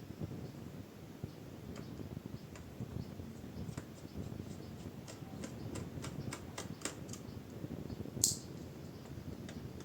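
Scattered light clicks and ticks of a screwdriver working the small screws on a laptop's plastic bottom case, over low handling rumble, with one sharper click a little past eight seconds.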